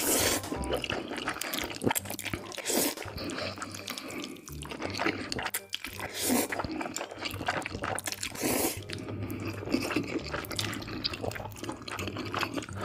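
Close-miked, wet slurping and chewing of black bean noodles in thick sauce. Several long, loud slurps come a few seconds apart, with sticky mouth clicks and smacking between them.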